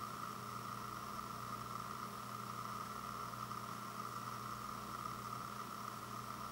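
Steady background hiss with a low hum and no distinct events: room tone.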